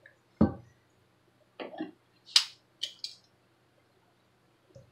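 Stainless steel mixing bowl set down on the counter with a dull thump, followed by a few lighter knocks and sharp clicks of kitchen handling.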